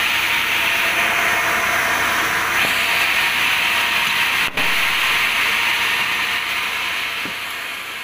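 Large log band saw running, a steady hissing whir that grows a little stronger partway through and fades near the end.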